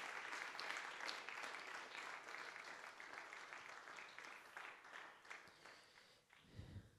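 Congregation applauding, faint and dying away over about six seconds, with a short low thud near the end.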